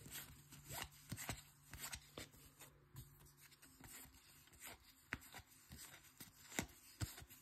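Faint, irregular clicks and slides of cardboard trading cards being flipped one at a time off the front of a hand-held stack.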